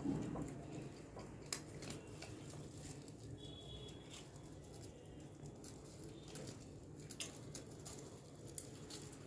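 Faint scattered clicks and soft rustling of rabbits chewing fresh greens, with a short high chirp about three and a half seconds in.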